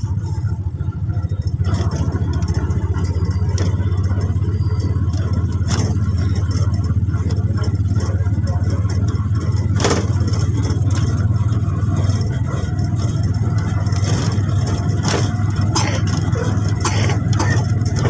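Motorcycle tricycle's engine running steadily while riding along, with scattered knocks and rattles from the vehicle's body.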